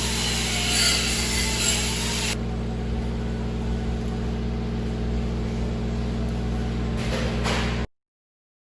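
A steady low machine hum. The high hiss above it drops away suddenly about two and a half seconds in, and the whole sound cuts off abruptly near the end.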